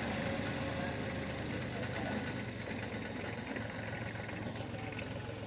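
Farm tractor engine running steadily as the tractor drives off, gradually fading.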